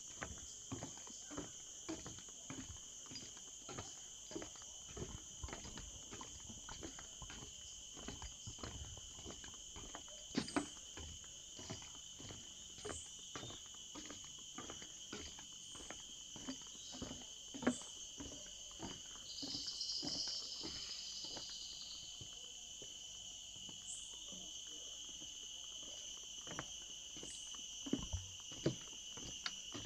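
Steady, high-pitched insect chorus holding two pitches, with footsteps walking at about two steps a second. A short, louder buzz comes a little past halfway.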